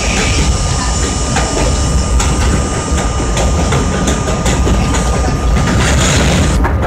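R32 subway car running along an elevated line, heard from inside the car: a steady rumble with wheels clicking over the rail joints, and a steady high tone underneath.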